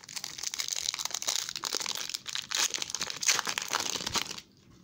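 Plastic-foil trading-card pack wrapper crinkling as it is handled and torn open. The crackling stops abruptly near the end.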